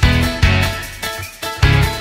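Background music with a regular beat and strong bass notes.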